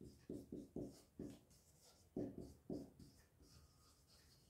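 Marker pen writing on a whiteboard: a run of faint, short strokes as a word is written, with a pause of about a second partway through.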